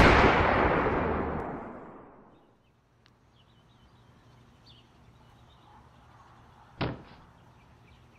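Gunshot sounds: the echoing tail of a loud shot dies away over about two seconds, then faint birdsong, and a single sharp pistol shot about seven seconds in.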